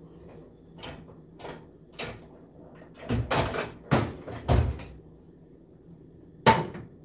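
Kitchen cupboard doors and dishware knocking as a baking dish is fetched: a few scattered light knocks, a cluster of louder clunks around three to five seconds in, and one sharp clack near the end as the baking dish is set down on the stovetop.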